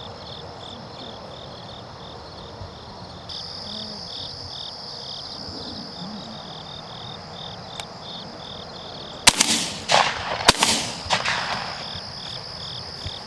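Two shotgun shots about a second apart near the end, over insects chirping in a steady rhythm of about three chirps a second.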